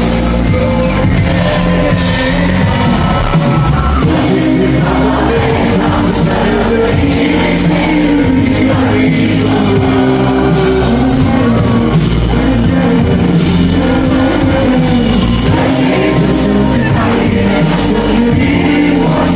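Live rock band playing loudly, with singing and shouts over the music.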